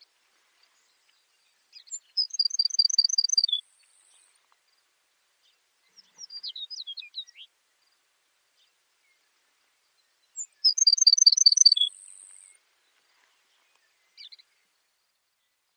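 Baird's sparrow singing twice, each song a quick run of about six high notes ending on a lower note. Softer, scattered descending notes come between the two songs.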